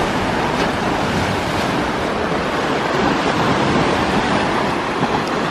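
Sea surf breaking and washing against shoreline rocks, a steady noise with no separate crashes standing out.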